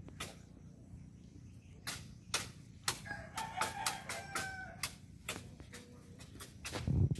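Rooster crowing once, about three seconds in, over scattered sharp clicks and rustles.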